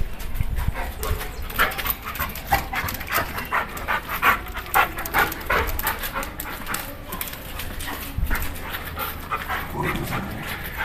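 Dog panting hard and fast during rough play, a quick steady run of breaths, strongest in the middle.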